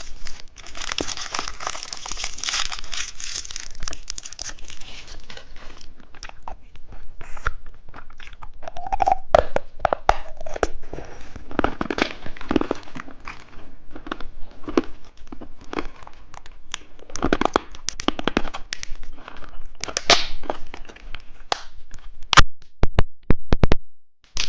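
A plastic candy wrapper crinkles and tears for the first few seconds, followed by scattered crunching, crackling and chewing of hard candy, with a few sharp clicks near the end.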